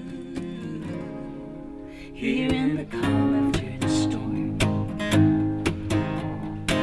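Two acoustic guitars playing without singing: soft, ringing chords at first, then strummed chords that pick up and get louder about three seconds in.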